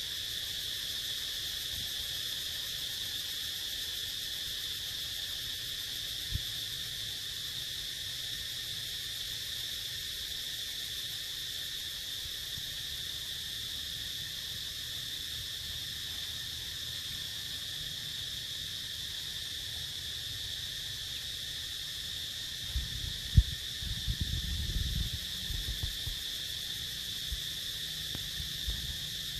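Steady, high-pitched insect chorus drone that does not change. Near the end comes a brief cluster of low thumps.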